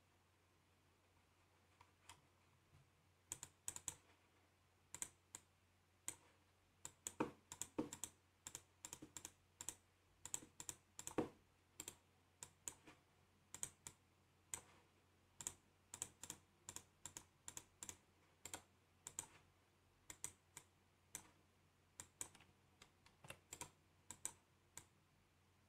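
Quiet, irregular clicking of a computer mouse and keyboard, often in quick pairs, sparse at first and frequent from about three seconds in, over a faint steady hum.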